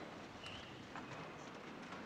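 Hushed church interior: low room noise with a few faint, scattered taps and knocks, some with a short squeak, from the congregation shifting in the pews.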